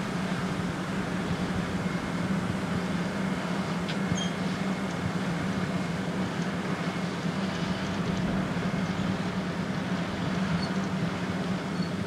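Steady diesel engine drone from a Dewulf RA3060 potato harvester, with its 310 hp Deutz six-cylinder, and the tractors beside it, running while the harvester's raised bunker empties potatoes into a trailer.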